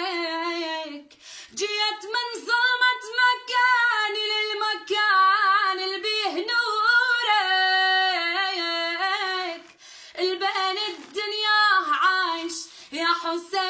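A high voice singing a Shia lament (latmiya) for Husayn unaccompanied, in long ornamented notes that waver and bend, pausing briefly twice.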